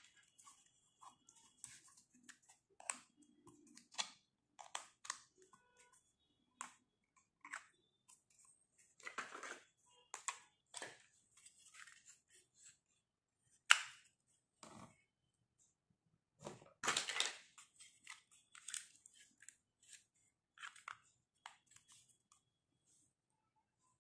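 Small hollow plastic toy furniture pieces handled and set down on a tabletop: scattered light taps, clicks and brief scrapes, with a louder clatter about halfway through and another a few seconds later.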